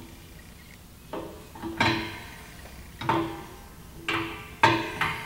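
Background acoustic guitar music: a handful of plucked and strummed chords, each ringing and fading.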